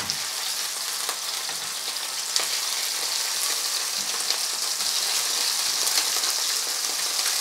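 Lamb chops sizzling steadily in hot oil in a nonstick frying pan over high heat, the sizzle swelling slightly as the chops are turned onto their raw sides. Scattered light clicks and taps come from the metal tongs turning them.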